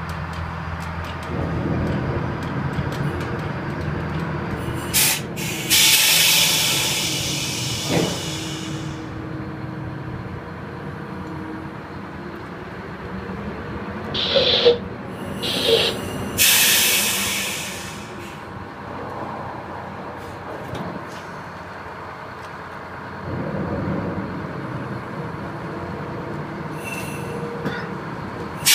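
Tugboat engines rumbling, heard from inside the wheelhouse, as the tug manoeuvres against a barge. Several loud hissing bursts cut in, each lasting a second or more, with two short sharp sounds between them.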